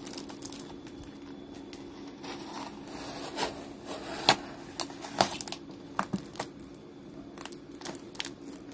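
Box cutter slicing through packing tape on a cardboard parcel, with irregular sharp crackles and snaps of the tape and rustling of the wrapping.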